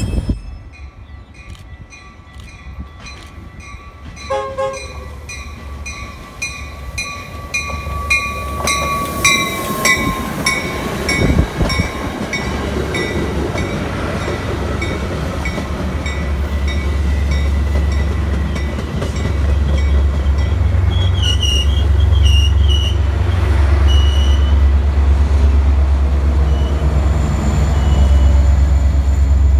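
A warning bell rings steadily at about two strokes a second as a Metra push-pull commuter train approaches. The passing bilevel gallery cars then add rolling wheel noise. Near the end, the steady low diesel rumble of the MP36PH locomotive pushing at the rear takes over as the loudest sound.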